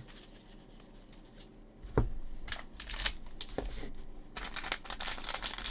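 Trading cards and a foil pack wrapper being handled: a single knock about two seconds in, then light clicks, and steady rustling and crinkling from about four seconds in.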